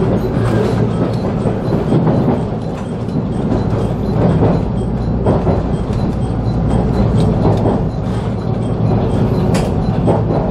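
Cabin noise of a local electric train running on the track: a steady low rumble of wheels on rail, with scattered sharp clicks and knocks from the wheels over the track, as it runs into a station.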